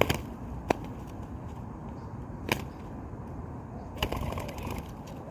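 A few sharp clicks over a steady background noise, single ones near the start and about two and a half seconds in, then a quick run of clicks about four seconds in.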